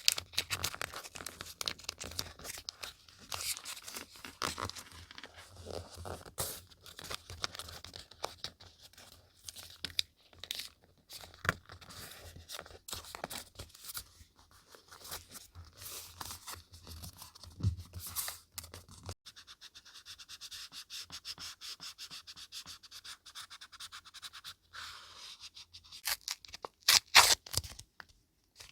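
Paper handled close to the microphone during scrapbooking: a dense run of small crinkles, taps and rustles, then a steadier scratchy rubbing for several seconds, and a few loud sharp crackles near the end.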